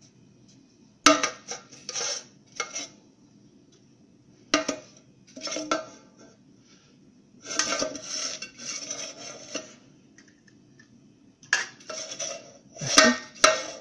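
Metal clanking and scraping as a camping pot is moved around inside a metal coffee tin, in four short bursts a few seconds apart.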